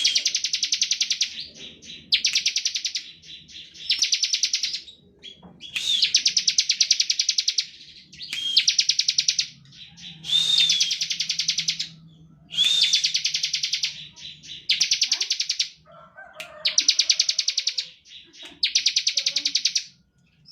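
Bar-winged prinia (ciblek) singing its rapid 'ngebren' song: fast, buzzy trills about a second long, repeated roughly every two seconds, with short chirps between them.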